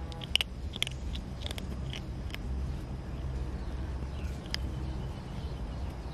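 A kitten crunching dry cat kibble: a quick run of small crisp crunches over the first couple of seconds, then a single crunch later on, over a steady low hum.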